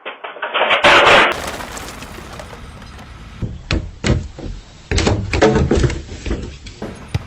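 A loud crash about a second in, then a run of sharp knocks and bangs.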